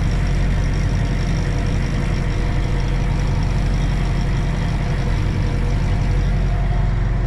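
Tractor engine running steadily at about 1300 rpm, heard from inside the cab, driving a feeder wagon as it unloads feed.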